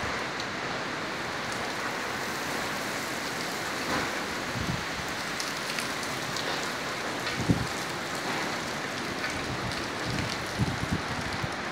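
Heavy rain pouring down in a steady, dense hiss, with a few low thumps now and then.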